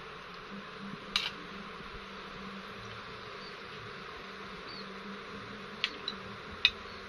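Metal spoon clinking against a ceramic bowl: one clink about a second in, then a few more near the end, the last the loudest, over a steady background hiss.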